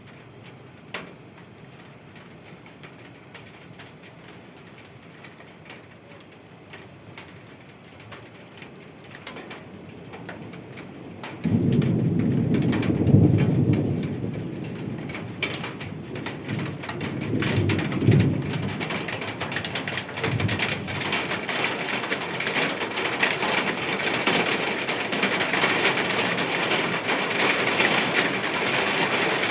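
Steady rain falling. About eleven seconds in, thunder sets in suddenly and rumbles low in several waves over the next ten seconds. The rain grows heavier, with a denser hiss, toward the end.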